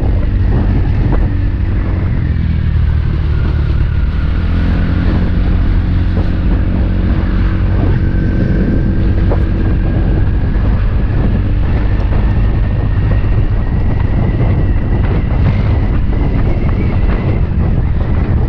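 Motor scooter engine running under way, its note dropping about two to four seconds in and then holding steady, with wind buffeting the microphone throughout.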